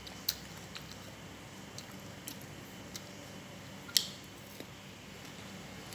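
Close-up mouth sounds of a person eating soft fruit: scattered wet smacks and clicks of chewing over a faint hiss, the loudest a sharp click about four seconds in.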